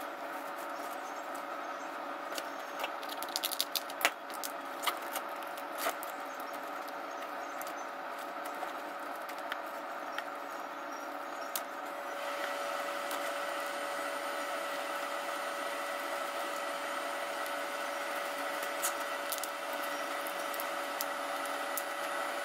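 Cooked spiny lobster shell handled and pulled apart by gloved hands, giving a few sharp clicks and crackles, mostly in the first several seconds. A steady hum runs underneath and gets a little louder about halfway through.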